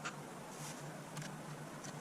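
A few faint, short metallic clicks as a lock washer is worked onto the shaft of a dryer's idler tension pulley, over a steady low hum.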